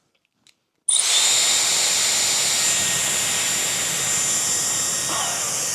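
Dyson Airwrap i.d. switched on about a second in: its motor starts at once into a loud, steady rush of blown air with a thin, high whine over it.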